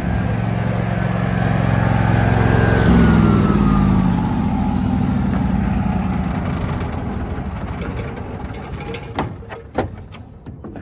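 A motor vehicle's engine goes by: its steady hum grows louder to about three seconds in, drops in pitch and fades away. A few sharp knocks follow near the end.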